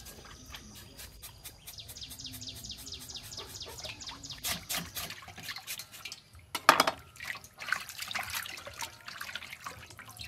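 Water splashing and sloshing in a stainless steel bowl as raw pork is rubbed and turned by hand, in a string of short splashes. The loudest splash comes about two-thirds of the way through.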